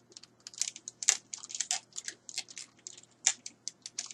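Plastic action figures and pieces being handled and rummaged through in a box: a rapid, irregular clatter of small clicks and rustles, with a louder knock about a second in and another a little after three seconds.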